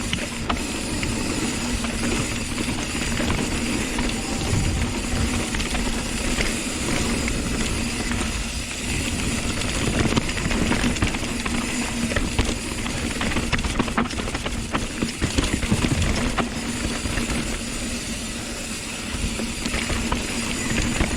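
Wind rushing over the camera's microphone and the rattle of a hardtail mountain bike riding a downhill trail, with several sharp knocks from bumps and landings.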